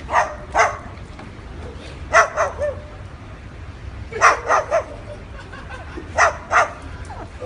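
A dog barking in quick groups of two or three barks, about every two seconds, four groups in all.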